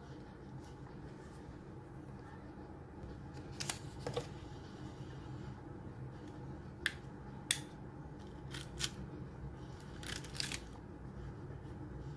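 Crafting sounds as paper and a tape runner are handled on a notebook page: short sharp clicks, mostly in pairs, from about four seconds in, over a low steady hum.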